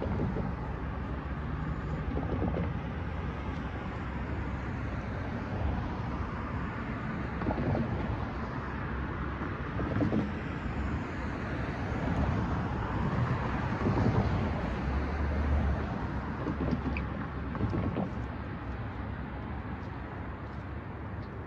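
Road traffic crossing the tracks at a railroad grade crossing: cars going by one after another, each passing swelling and fading over a steady rush of tyre noise, loudest around the middle and easing near the end.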